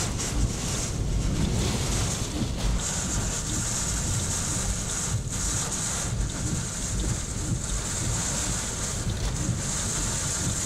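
Typhoon-force wind and driving rain lashing a moving car, heard from inside the cabin: a steady high hiss of rain and road spray over a heavy low rumble of gusts.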